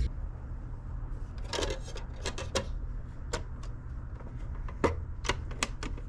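Scattered, irregular sharp clicks and taps over a low steady hum, with one louder click about five seconds in.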